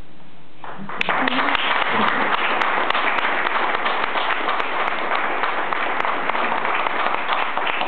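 An audience breaks into applause about a second in, with steady, dense clapping after that.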